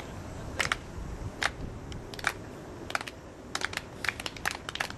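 Irregular sharp clicks and taps, a few each second and crowding together a little past the middle, over a low steady rumble.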